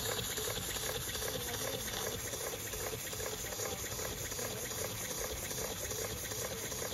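Model tandem steam engine running under steam from its vertical boiler: a steady hiss of steam with a soft, regular pulsing underneath.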